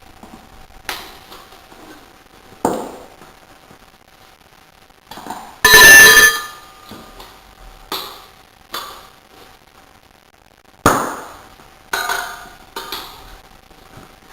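Metal tools or parts knocking and clinking during a rear tyre change: about eight separate sharp knocks. The loudest, about six seconds in, is a metallic clang that rings briefly.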